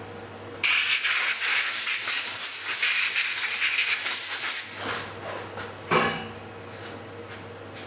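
Compressed-air blow gun blasting a freshly machined stainless part clean: a loud, steady hiss that starts suddenly and cuts off after about four seconds, followed by a sharp knock.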